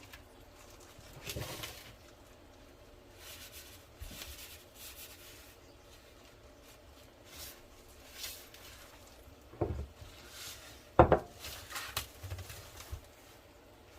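Scattered kitchen handling noises while breading chicken cutlets: soft rustles and taps, with two sharp knocks a little under ten and about eleven seconds in, the second the loudest.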